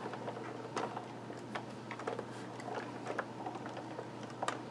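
Sizzix Big Shot die-cutting machine being hand-cranked, its rollers drawing a plate-and-die sandwich through to cut cardstock, with soft irregular clicks and ticks.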